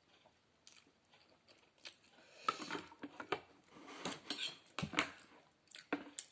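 Close-up eating sounds: a person chewing a mouthful of noodle soup, with a metal spoon clicking against the bowl. It is quiet at first with a few clicks, then busier from about halfway through.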